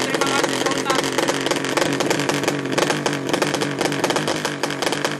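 A 200cc horizontal-cylinder drag bike engine running loudly and steadily at the start line through an open racing exhaust, with a rapid stream of firing pulses.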